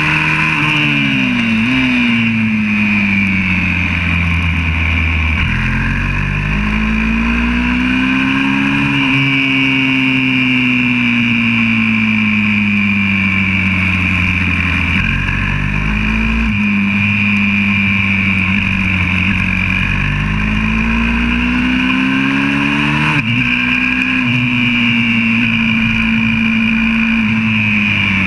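YCF 125cc four-stroke pit bike's single-cylinder engine heard from on board at full racing pace, its pitch climbing under throttle and falling away again every few seconds as the rider shifts gears and brakes for corners.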